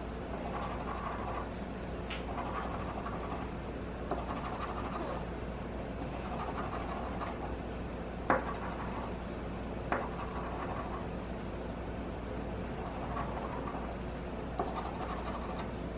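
Scratching the coating off an instant lottery scratch ticket: a steady rasping scrape, with a few sharp taps along the way.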